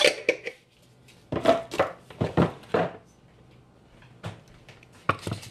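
Kitchen clatter: a run of knocks and clinks from containers and utensils being handled, bunched about a second in, then a couple of single knocks near the end.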